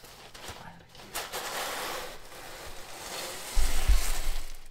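Rough scraping and rubbing of a car's drivetrain parts being worked free, then a heavy low thump about three and a half seconds in.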